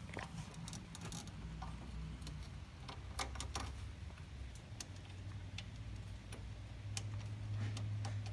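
Scattered light metallic clicks and taps of hands and hardware working at a Ford flathead V8's thermostat housing, over a low steady hum that grows louder near the end.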